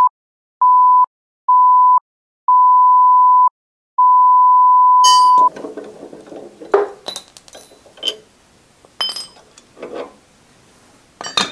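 A single steady electronic beep tone, sounding four times, each beep longer than the one before and the last held about a second and a half. About five seconds in it gives way to light metallic clicks and clinks of hands handling steel parts and tools on a metal bandsaw base.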